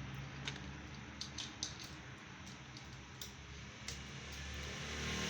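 Light metallic clicks and taps of engine parts and hand tools being handled, about half a dozen scattered through, over a low steady hum.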